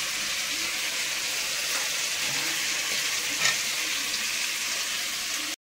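Food frying in a pan: a steady sizzling hiss with a couple of faint ticks, which cuts off suddenly at the end.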